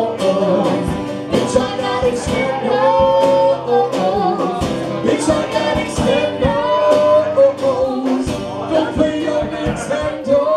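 Live band playing: a woman sings lead with long held notes over two strummed acoustic guitars and a drum kit keeping a steady beat.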